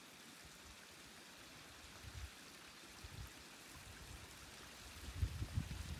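Wind on an outdoor microphone: a faint steady rush with irregular low buffeting, a couple of gusts about two and three seconds in and more near the end.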